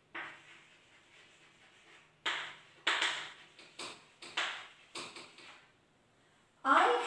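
Chalk writing on a chalkboard: a series of short, scratchy strokes and taps at an uneven pace as words are written. A woman's voice starts near the end.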